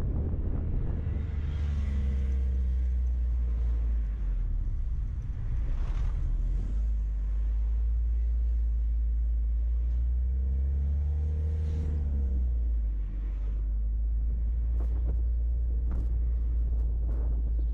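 A vehicle driving along a paved road: a steady low rumble of engine and road noise. An engine note swells and bends twice, and a few faint knocks come near the end.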